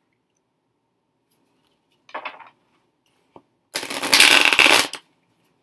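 A deck of tarot cards being shuffled by hand: a brief rustle about two seconds in, a small tap, then a loud shuffle of the cards lasting just over a second near the end.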